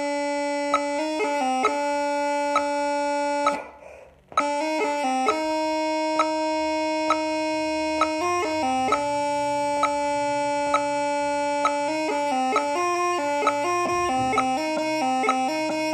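Great Highland bagpipes playing a tune in harmony, the melody stepping between held notes. The sound drops out almost completely for about half a second around four seconds in, then the piping carries on.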